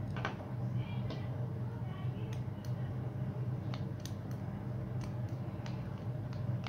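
Screwdriver working small screws into the mounting plate of a 2.5 cc model nitro engine: scattered sharp metal clicks and light scrapes, roughly one or two a second, over a steady low hum.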